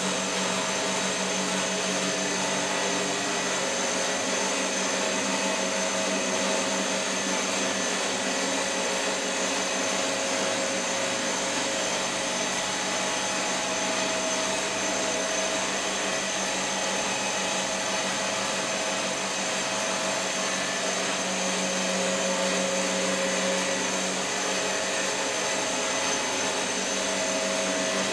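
Steady machine hum of running laboratory equipment: an even hiss with a constant low hum and a thin high whine, unchanging throughout.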